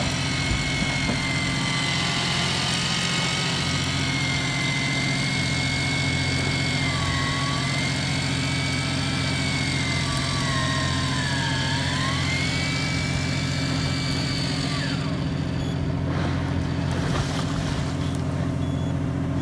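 Electric fishing reel's motor whining as it winds a hairtail rig up from depth, its pitch sagging and recovering as the load on the line changes, then stopping about three-quarters of the way through. Under it runs the fishing boat's engine with a steady low hum.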